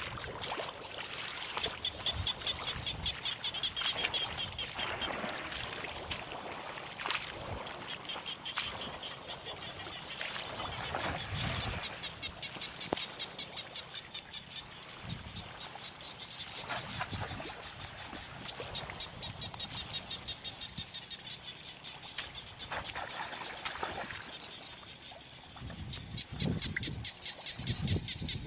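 Countryside ambience of small animals calling: long trains of rapid, evenly repeated high chirps that start and stop in stretches, with scattered knocks and a few low thumps near the end.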